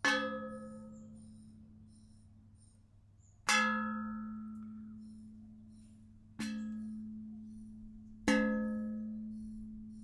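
A rusty metal dustpan struck four times with a plastic hand brush. Each hit rings out like a bell, with a low hum and bright overtones that fade over a couple of seconds. The hits land at the start, about three and a half seconds in, about six and a half seconds in and about eight seconds in, and the third hit is softer.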